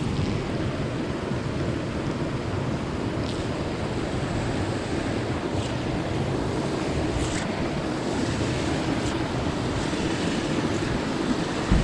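Steady wind noise on the microphone, with a few faint light clicks.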